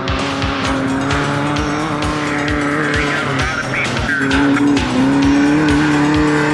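Background music with a steady, fast drum beat and held, distorted chords that change in steps, about three and four seconds in.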